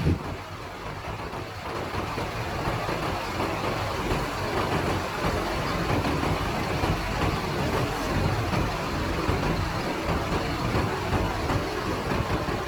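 Tour bus engine idling with a steady rumble.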